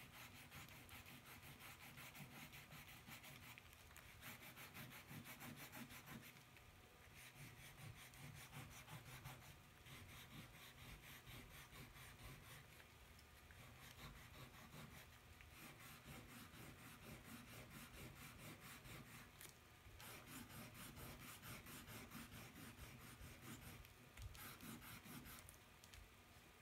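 Faint scratching and rubbing of a white colouring stick worked back and forth over drawing paper, in uneven strokes, over a faint steady hum.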